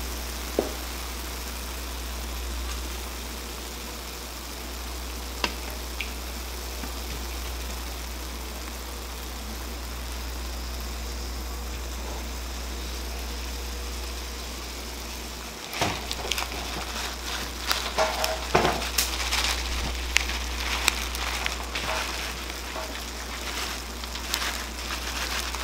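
Takoyaki batter frying on a hot, oiled takoyaki griddle: a steady sizzle over a low hum, breaking about two-thirds of the way in into dense crackling and popping as more batter hits the hot oil.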